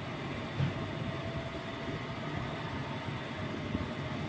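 Steady low background rumble with a faint hum over it, with no distinct events apart from a brief low bump about half a second in.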